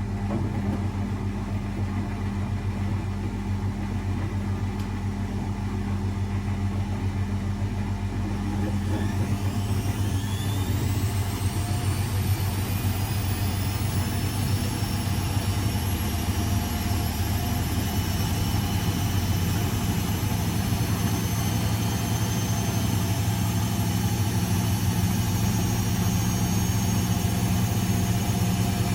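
Blomberg 240W washing machine running with a steady low hum; about a third of the way in its motor speeds up into a spin, a whine rising in pitch and then holding steady at high speed.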